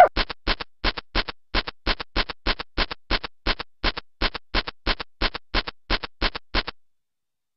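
The After Dark 'Bad Dog' screensaver dog's digging sound effect: a regular run of short scratchy strokes, about three a second, stopping a little before the end.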